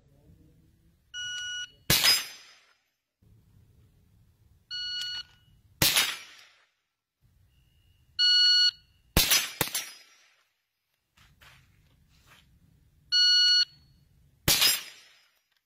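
A shot timer's start beep, each followed about half a second later by a sharp shot from an AR-15-style rifle, repeated four times; after the third beep two shots come in quick succession.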